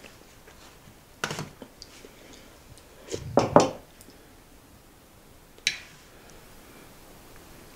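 Metal spoons clinking and knocking against porcelain soup bowls while eating: a few scattered clinks, the loudest pair about three and a half seconds in.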